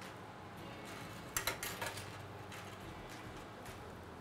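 Baby spinach wilting in butter in a hot frying pan, with a low steady sizzle, and a few sharp clinks of a utensil against the metal pan about a second and a half in.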